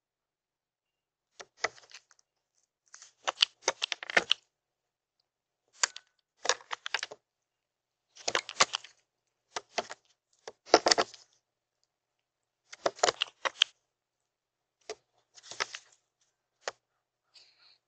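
Herring gull pecking at nuts on a hard tabletop feeder: about a dozen short bursts of quick, sharp bill taps, with silent gaps between them.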